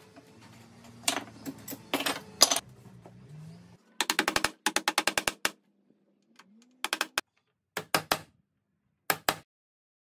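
Claw hammer tapping small nails through a wooden bone cut-out into the timber gable of a dog house: a quick run of light taps, then short groups of two or three taps with pauses between. In the first few seconds, under a faint low hum, there are a few separate knocks.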